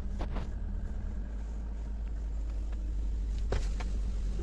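Small car's engine idling steadily, heard from inside the cabin, with a couple of short noises just after the start and again near the end.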